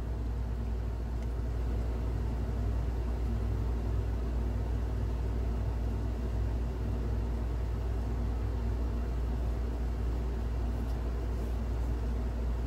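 Steady low rumble of background noise, even throughout, with a couple of faint clicks near the end.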